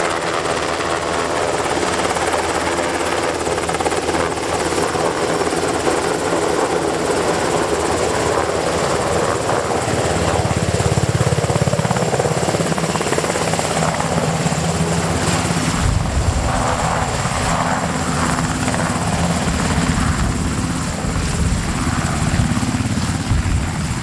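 UH-60J rescue helicopter's main rotor and twin turboshaft engines running loud and steady as it flies in low to land. The deep rotor beat grows much stronger about two-thirds of the way through as the helicopter nears the ground.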